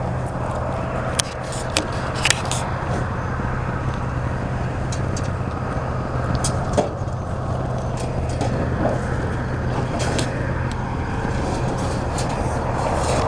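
A vehicle engine running steadily, with scattered sharp clicks and rattles over it.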